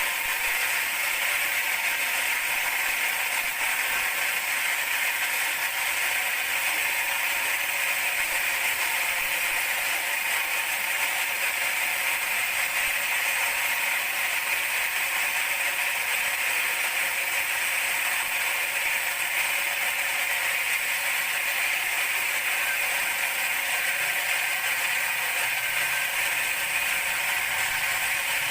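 Large band sawmill running steadily, a constant even machine noise with no pauses or changes in speed.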